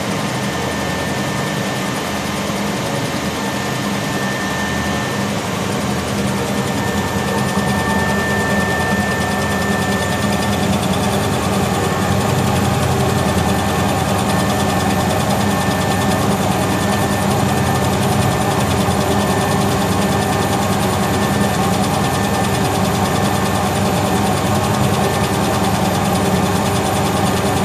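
Laser engraving machine running while it engraves glass: a steady mechanical hum with a high whine that holds at first, then keeps cutting in and out as the head moves.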